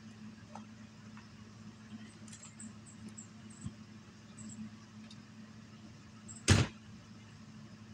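Camper trailer's entry door pulled shut with one loud slam about six and a half seconds in, over a steady low hum.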